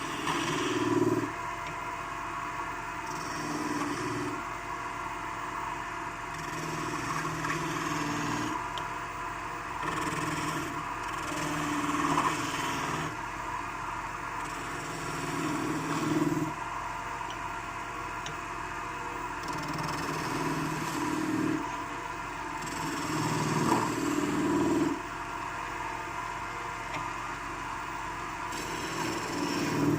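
Wood lathe running steadily, with a turning chisel cutting the spinning wood in repeated passes of a second or two each.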